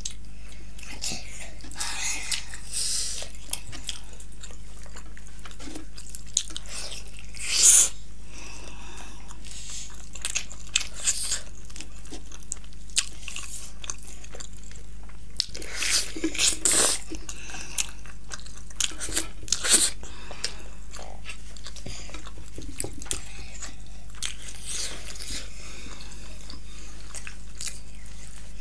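Close-miked eating: biting into and chewing fried chicken lollipops, with scattered crunches and mouth sounds, the loudest bites about eight seconds in and again between about sixteen and twenty seconds. A steady low hum runs underneath.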